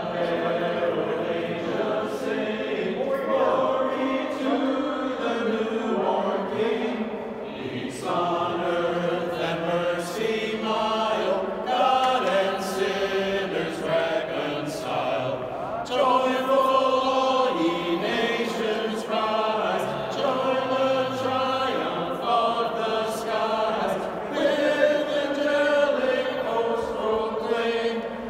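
A small group of mostly male voices singing together.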